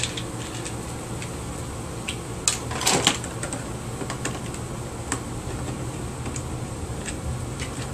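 Scattered light clicks and taps of a screwdriver and hands working on the plastic housing of a small vacuum cleaner being taken apart, with a louder plastic clatter about three seconds in.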